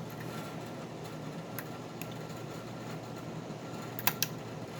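A few faint, sharp clicks of a lock pick working the pins of a 6-pin Wilka euro cylinder under heavy tension, with a sharper pair near the end, over a steady background hiss.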